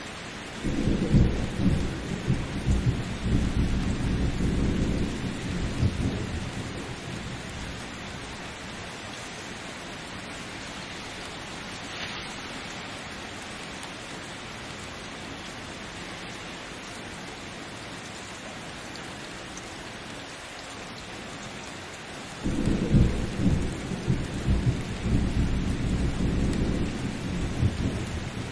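Thunderstorm: steady rain throughout, with two long rolls of thunder, the first starting about a second in and lasting around five seconds, the second beginning a few seconds before the end.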